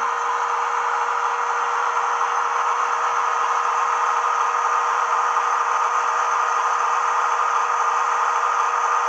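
Sound-decoder recording of a Class 70's GE PowerHaul diesel engine, played through a tiny megabass speaker in an OO-gauge model locomotive, running steadily with a constant hum and no deep bass.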